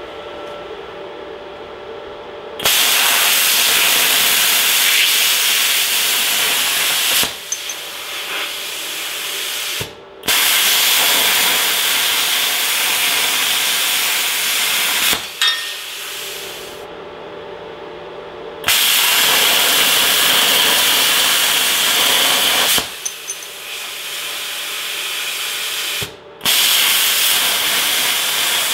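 Hitbox HBC45 IGBT plasma cutter cutting steel: the plasma arc's loud, steady hiss, four times, each cut lasting about four to five seconds and starting and stopping abruptly. A quieter hiss runs between the cuts.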